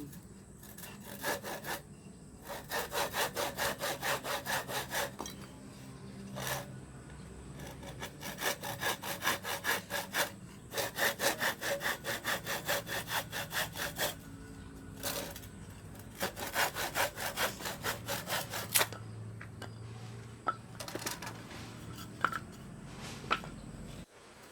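Hand saw sawing in quick, even back-and-forth strokes, about four a second, in several bursts with short pauses between them.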